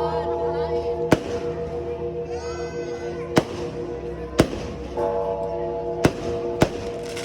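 Fireworks going off: about five sharp, separate bangs spread across several seconds over a steady background of noise. Background music holds a sustained chord throughout.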